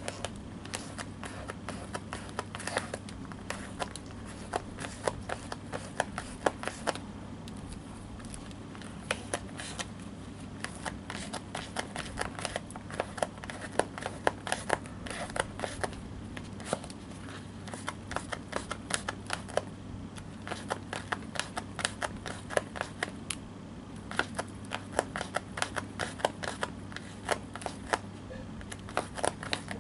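Linen sewing thread being pulled repeatedly through a folded leather pad of shoemaker's wax to coat it, giving quick, irregular rasping ticks and rubs over a steady low hum.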